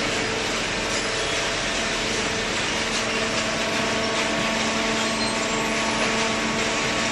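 Hydraulic baler running steadily, its electric motor and hydraulic pump giving a constant hiss over a steady hum of several even tones.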